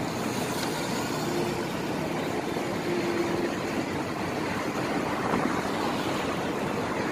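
Steady background noise of road traffic, an even rumble and hiss without distinct events.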